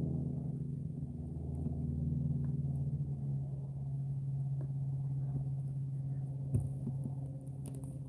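A low, steady droning hum made of several pitched tones; the higher tones fade out about three and a half seconds in, leaving a deeper drone. A short knock about six and a half seconds in.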